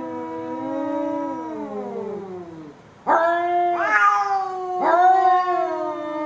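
Domestic cat yowling. One long wavering call sinks in pitch and fades, and after a short pause three more drawn-out wailing yowls follow. This howl-like call can be a sign of distress or loneliness.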